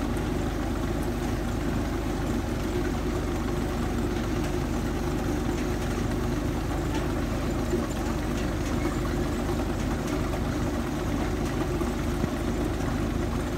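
Water-well boring rig's engine running steadily at an even speed, with no change in pace.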